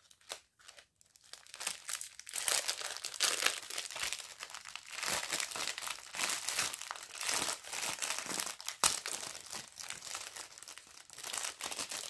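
Packaging crinkling and crackling as it is handled and opened, most likely the bags of diamond-painting rhinestones. It starts about two seconds in and runs on with many small sharp crackles.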